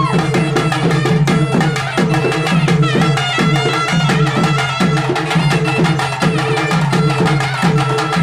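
Live South Indian temple folk music: double-headed barrel drums beating a fast, steady, repeating rhythm, with a wind instrument holding a high sustained melody over it.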